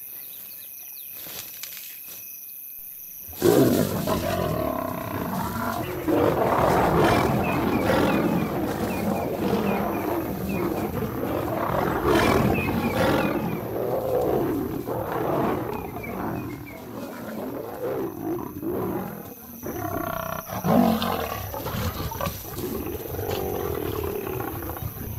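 Insects chirp steadily, then about three seconds in lions break into loud growling and snarling. A male lion is fighting lionesses, and this goes on almost to the end with a short lull a few seconds before it ends.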